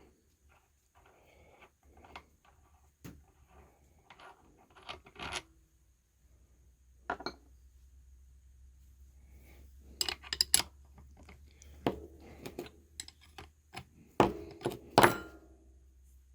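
Differential bearing caps, bolts and bearing races clinking and clunking as they are handled and set down, with irregular metal knocks and the loudest clanks about ten seconds in and again near the end.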